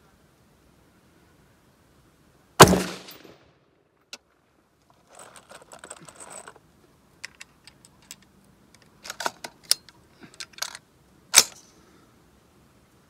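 Two rifle shots from a Taurus T4 fired at a distant target, the first about two and a half seconds in and the second near the end, each a sharp crack with a brief echo. Faint clicks and rustling in between.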